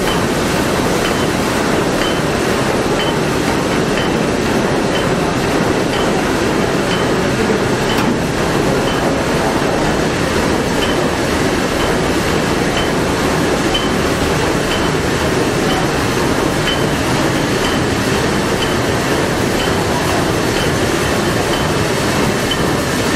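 Engine-room din of a Liberty ship's triple-expansion steam engine running at full speed: a loud, steady mechanical clatter and rush, with a faint tick about once a second.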